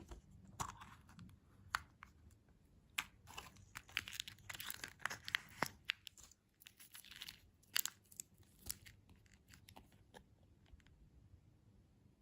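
Close-miked crunching and chewing of crunchy candy or dessert: a run of crisp crackles and bites that is densest in the middle and thins out over the last few seconds.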